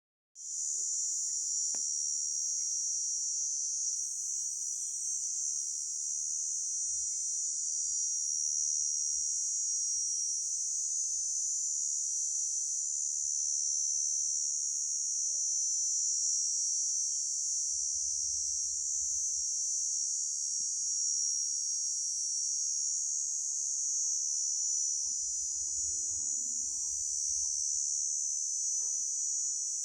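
Grasshopper stridulating: a continuous, steady, high-pitched buzz with no breaks.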